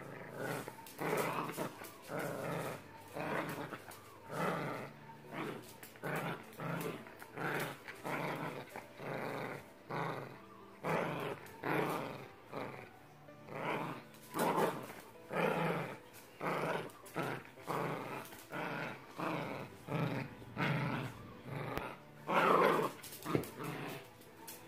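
Yorkshire terrier giving play growls while tugging on a rope toy: a rapid string of short growls, about three every two seconds, the loudest one a little before the end.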